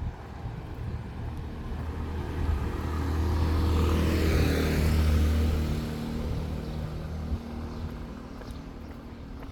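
A motor vehicle passing close by: its engine hum and tyre noise build up, peak with a brief swoosh about four to five seconds in, then fade away.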